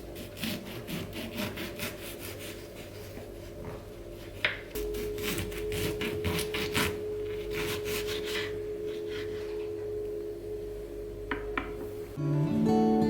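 Rhythmic rasping, scraping strokes, then a small appliance humming steadily from about five seconds in, while morning drink things are being prepared. Soft acoustic guitar music comes in near the end.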